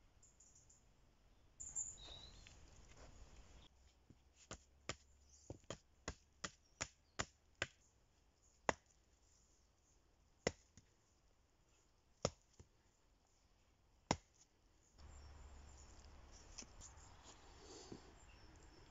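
A run of sharp knocks, about three a second for a few seconds, then four single knocks a couple of seconds apart.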